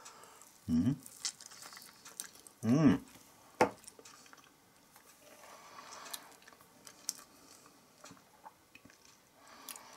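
Knife and fork working through chunks of canned stewed pork on a plate: soft squishing and faint scrapes, with one sharp click of metal on the plate about three and a half seconds in. A man makes two short murmured sounds, about one and three seconds in.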